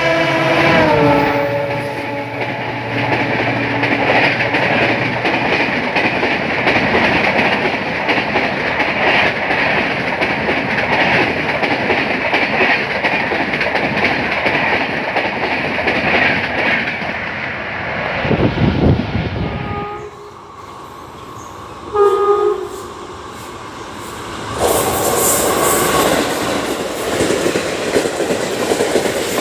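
A diesel locomotive's horn sounds and falls in pitch as an express train runs through at high speed, followed by the steady rush of its coaches. After a cut about twenty seconds in, a horn sounds briefly and a second express's coaches pass at about 110 km/h with rhythmic wheel-on-rail-joint clatter.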